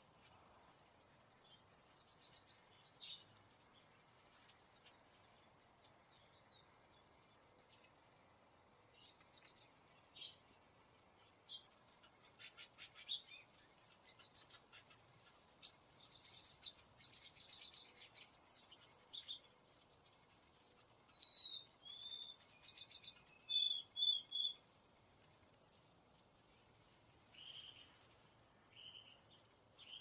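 Small songbirds calling: a scatter of short, high, thin chips that thicken into a dense flurry in the middle, followed by a few short whistled notes in the second half.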